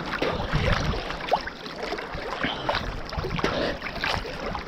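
Sea water sloshing and splashing right against a camera held at the surface by a swimmer, a choppy wash of small irregular splashes with a low rumble of water moving over the housing.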